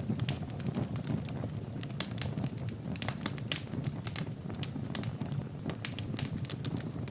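Wood fire burning in a fireplace, crackling with many irregular sharp pops over a low, steady rumble.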